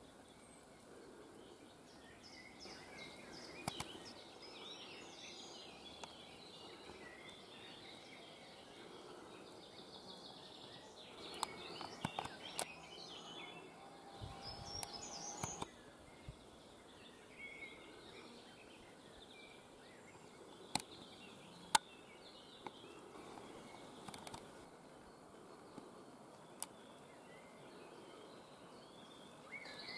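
Woodland birds singing and calling over a faint steady background hiss, with a few sharp clicks scattered through, the loudest a little past the middle.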